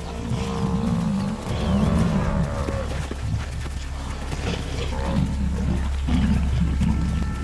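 Cape buffalo bull bellowing in distress over and over, low moaning calls that rise and fall, as lionesses pull it down. Lions growl and snarl over it.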